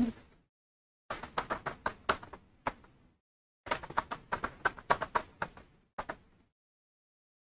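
Computer keyboard typing in two quick runs of key clicks, the second starting about halfway through.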